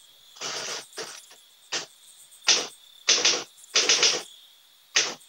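Manual typewriter being typed on: short clusters of rapid key strikes, about eight of them, with brief pauses between.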